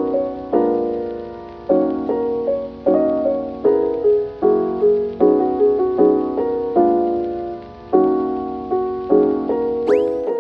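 Background music: calm chords struck about once a second, each fading before the next.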